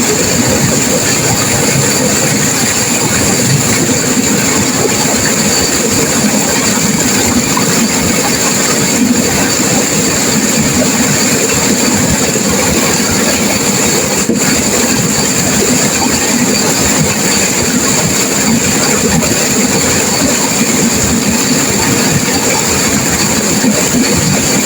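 Turbulent river water crashing and rushing, a loud, steady sound that does not let up.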